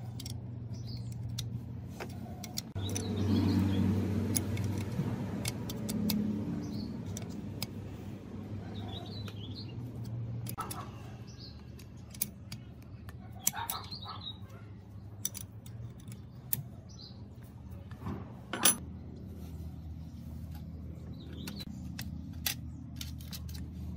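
Scattered small metallic clicks and clinks over a low steady hum, with a louder stretch of rattling about three seconds in and one sharp click late on. Birds chirp now and then.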